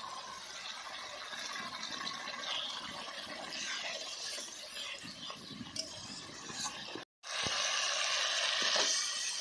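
Water poured into hot oil and fried spice paste in an iron kadai, sizzling, then the gravy bubbling as it is stirred with a steel spatula. The sound cuts out for a moment about seven seconds in and comes back louder.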